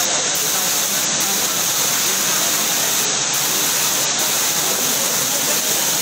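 Heavy rain pouring down in a strong wind: a steady, dense hiss.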